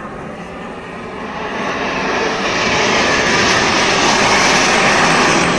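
Display jets flying past in formation, their engine noise swelling from about a second in to a loud, steady rush.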